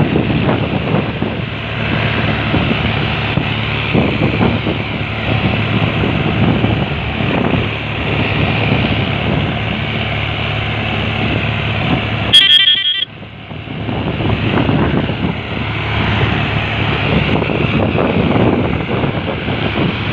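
Farm tractor diesel engines running steadily under load, with a low droning hum. About twelve seconds in, a brief, very loud, high-pitched sound cuts across it, and the engine noise drops for a moment after.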